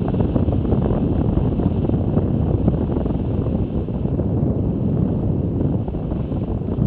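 Wind buffeting the microphone of a camera riding on a moving bicycle, a steady low rumble that wavers slightly in strength.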